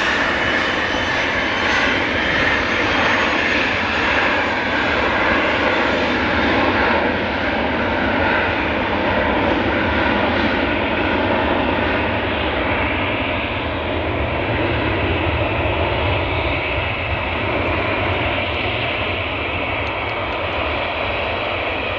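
Bombardier Learjet 60's two rear-mounted Pratt & Whitney Canada PW305A turbofans at takeoff power through the takeoff roll and lift-off. A steady, loud jet noise with a high whine that gradually dulls as the jet draws away.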